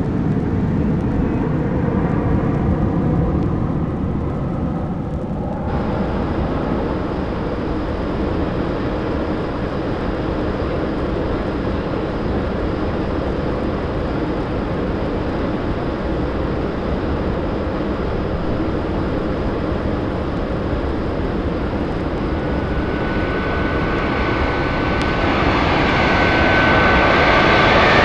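Several sound-effects record tracks playing over one another, giving a steady engine-like rumble of vehicles or aircraft. About six seconds in, a brighter layer joins. In the last few seconds a jet-like whine rises and grows louder.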